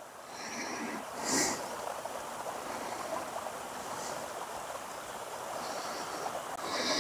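A small woodland stream running with a steady rushing babble, with a few brief soft hisses over it.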